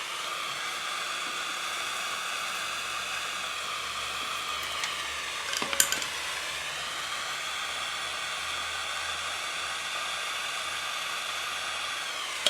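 Gas torch flame hissing steadily as it heats a leaking radiator for soldering, with a few light metallic clicks about six seconds in.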